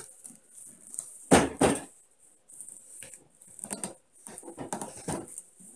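A soft padded stove carrying case being handled: a short zipper pull about a second and a half in, then fainter rustling and knocks of the fabric case.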